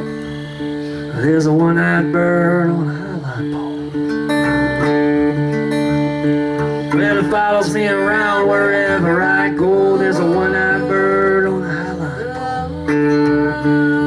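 Live acoustic folk song: an acoustic guitar is played with held chords while a voice sings two phrases, a short one about a second in and a longer one from about seven seconds.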